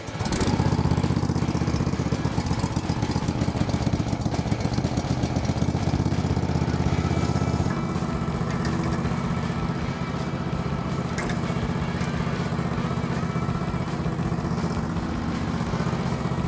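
Gasoline engine of a Logosol B1001 portable band sawmill, started on choke: it catches abruptly just as the sound begins and runs with a fast, even pulse. About eight seconds in it drops a little in level and runs on steadily.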